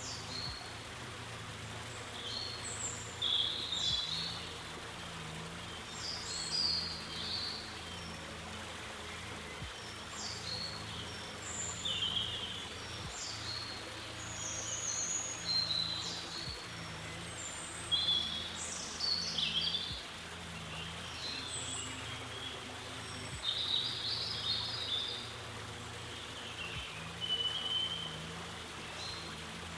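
Small songbirds chirping: many short, high calls every second or so, over a steady low background hum.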